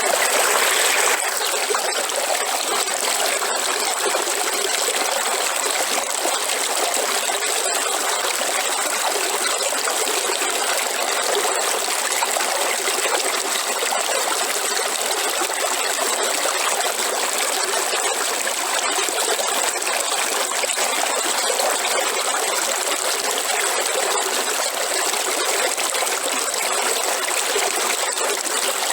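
River water flowing and trickling steadily, with a constant thin high-pitched tone above the rush of the water.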